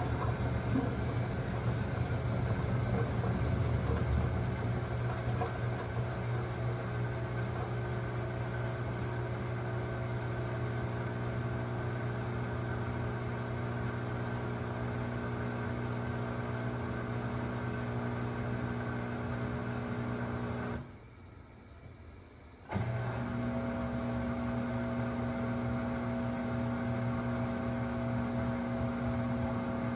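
Samsung WW25B6900AW/A2 front-load washer making a steady, loud buzzing hum. It cuts out for about two seconds roughly two-thirds through, then starts again. The owner links the loud buzz to the drain running when there is no water left to drain.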